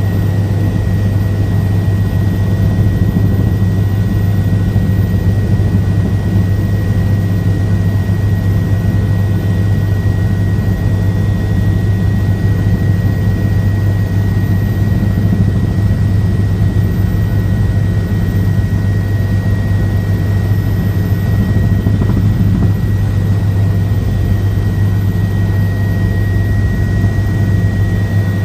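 Helicopter in flight: a loud, steady drone of engine and rotors with a thin high whine above it.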